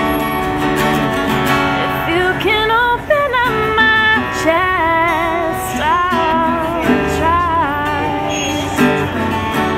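A woman singing a folk-pop song over a strummed acoustic guitar. Her voice comes in about two seconds in with wavering held notes and stops near the end while the guitar plays on.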